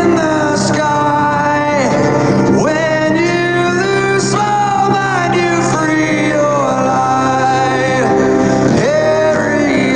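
Background music: a male voice singing over guitar, country style.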